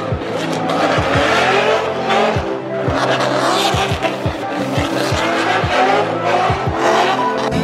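A car's engine revving in repeated rising pulls with tyres screeching as it does burnouts and donuts, with background music mixed underneath.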